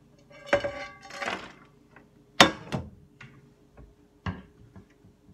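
Kitchen clatter: a handful of separate knocks and clinks of pans, dishes and utensils being handled, the first one ringing briefly and the sharpest about two and a half seconds in. A faint steady hum lies underneath.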